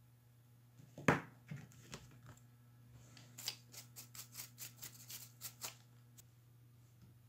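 Paintbrush bristles sweeping dust off an opened laptop's chassis, a quick run of about a dozen short scratchy strokes in the middle, after a single sharp knock about a second in. A low steady hum lies underneath.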